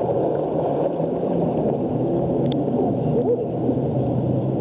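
Steady wind rushing over the microphone, mixed with the wash of choppy sea water.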